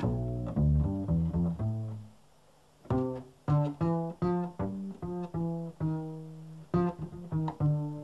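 Solo double bass played pizzicato: a line of plucked notes, each ringing and dying away, with a brief pause about two seconds in.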